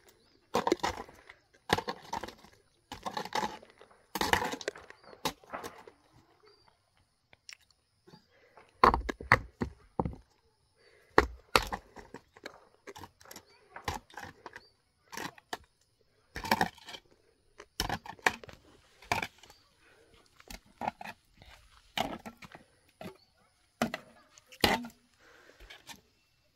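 Rock being broken by hand with hand tools: sharp knocks and cracks at irregular intervals, roughly one a second, some of them heavy.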